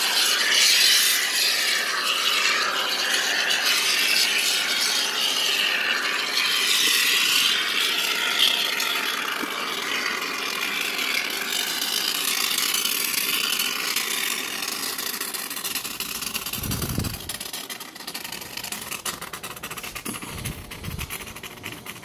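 Plastic wrapping on a battery rubbing and rustling against spray foam and a plastic bin as the battery is pressed down into the foam, with a couple of dull knocks near the end.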